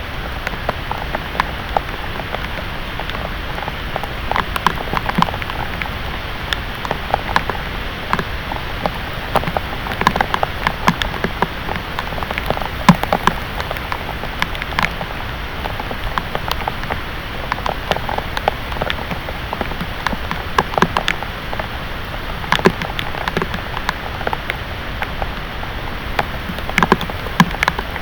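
Heavy thunderstorm rain falling steadily, with many sharp splats and ticks of drops striking a hard surface close by.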